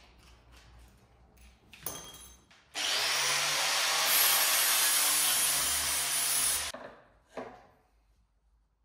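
Angle grinder working sheet steel for about four seconds, starting abruptly about three seconds in and winding down near the end. A few short knocks come before it.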